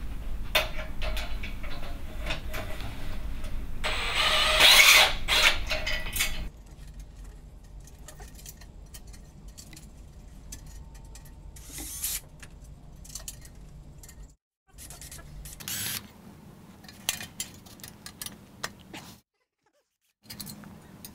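Electric drill-driver whirring as it backs out screws from a metal projector wall arm, loudest about four to six seconds in. Scattered light metal clicks and handling knocks follow.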